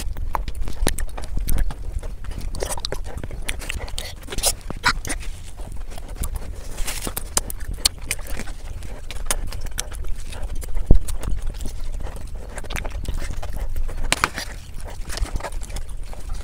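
Close-miked eating sounds sped up: rapid, irregular wet clicks and smacks of chewing and slurping a waffle dipped in chocolate sauce, over a low hum.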